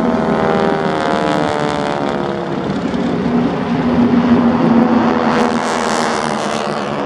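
Propeller-driven aircraft engine flying past, its pitch falling slowly as it goes by.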